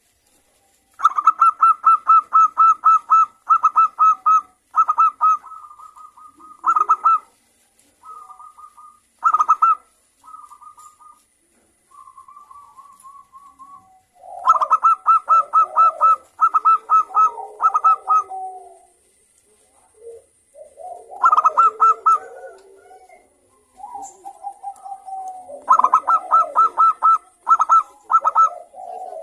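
Zebra dove (local perkutut) singing: repeated phrases of quick, clear, pulsed cooing notes, several bursts with short gaps between them. In the second half, lower, rougher sounds run beneath the song.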